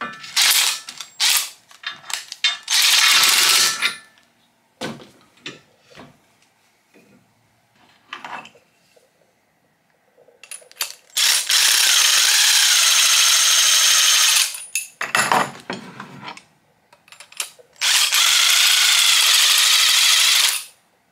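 Cordless impact driver spinning G-clamp screws through a 3/4-inch socket adapter, in runs of a few seconds each: a few short trigger blips, then longer runs near the start, in the middle and near the end. Light clicks and knocks come between the runs.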